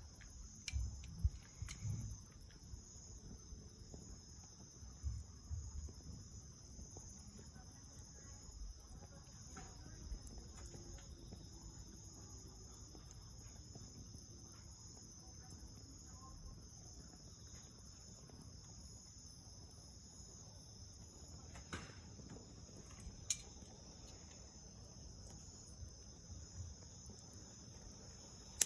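Crickets trilling steadily, with scattered small crackles and pops from a bonfire of dried soyogo (longstalk holly) leaves and twigs. A few low knocks fall in the first few seconds.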